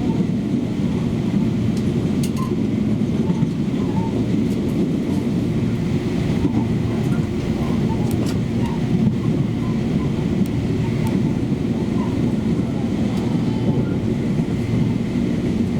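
Steady running rumble of a Taiwan Railway Tze-Chiang express train, heard from inside the carriage, with scattered faint clicks from the wheels on the track.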